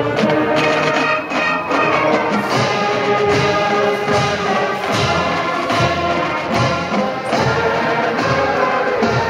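Marching band brass and drums playing the national anthem, with held brass chords over regular drum strikes.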